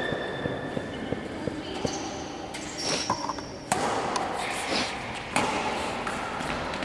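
Badminton rally: several sharp hits of rackets striking the shuttlecock.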